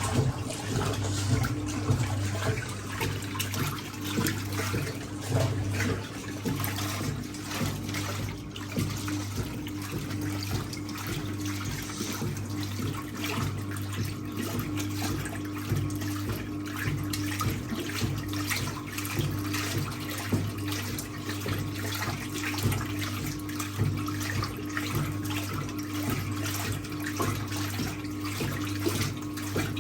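1958 Hotpoint Empress washing machine running its rinse cycle: the electric motor hums steadily while the agitator churns and sloshes towels through cold water.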